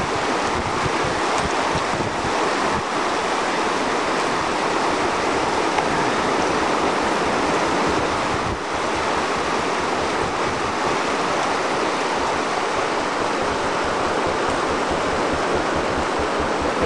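Fast mountain stream rushing over stones, a loud steady rush of water, with wind buffeting the microphone.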